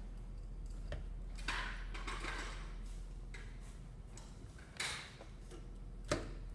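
Scrapes and clicks of a hand mixer's plastic housing and parts being handled and worked at during disassembly, with a sharp click near the end, over a steady low hum.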